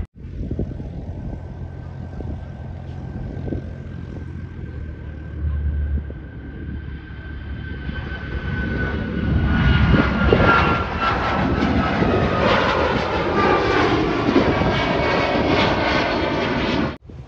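Boeing 737 jet engines at takeoff power as the airliner climbs out and passes overhead. The jet roar builds and grows loud about nine seconds in, with a whine that slowly falls in pitch as the plane goes by.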